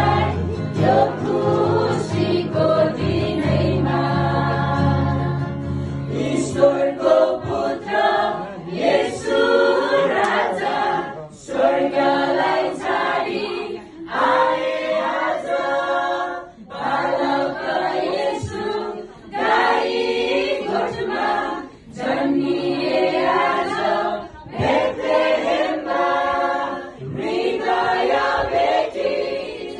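Mixed choir of mostly women singing a Christmas carol, phrase by phrase with short breaths between lines. A low bass note sounds under the voices for the first six seconds or so, then the voices carry on alone.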